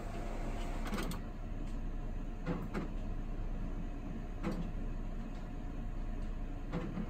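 Canon TM-305 large-format printer feeding its roll paper: a steady motor run with a few sharp clicks and knocks as the paper is moved forward and back to measure that it is straight.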